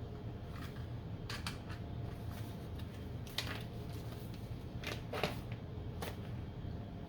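Scattered light clicks and taps of small parts and packaging being handled, about seven in all, the loudest near the middle, over a steady low hum.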